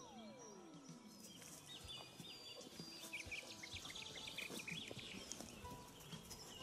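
Faint outdoor woodland background with small birds chirping and calling, including a quick run of short high notes a few seconds in. A single smooth tone slides down in pitch at the start.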